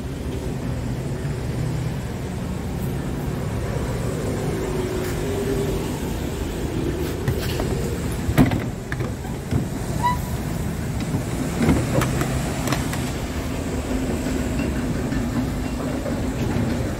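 Steady low mechanical drone of a parked Scania P refrigerated truck running, with a few sharp knocks in the middle, the loudest about eight seconds in.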